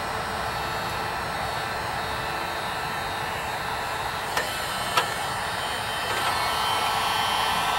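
Heat gun blowing steadily on solder-seal heat-shrink wire connectors, shrinking the tubing and melting the low-temperature solder inside. Two sharp clicks come about four and five seconds in, and the blowing gets a little louder near the end.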